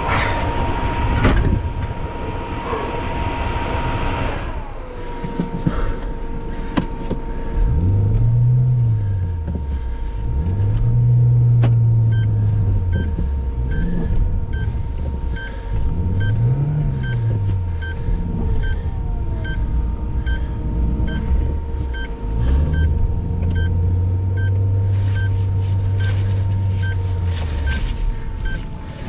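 Car engine revved up and down again and again, then held at a steady higher speed, as the car sits stuck in deep snow trying to get free. Loud wind noise cuts off about four seconds in. A steady hum and a faint tick about once a second run underneath.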